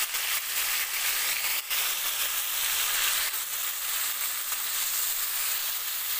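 Yogurt-marinated chicken pieces sizzling steadily as they fry in hot oil in a kadhai over a high flame.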